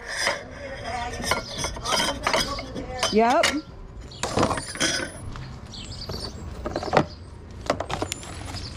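Scattered knocks, clicks and light clinks of goods being handled and moved about.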